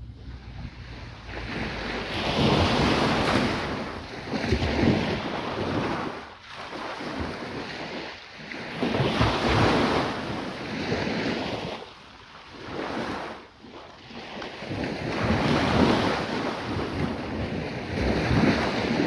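Waves breaking and washing up the beach, swelling and fading every few seconds, with wind on the microphone.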